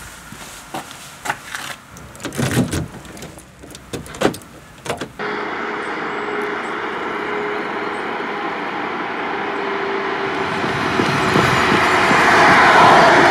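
Clicks and knocks of a car door being opened and the driver getting in, with a couple of solid thumps as the door shuts. Then a sudden switch to a steady rush of a car driving over asphalt, growing louder near the end.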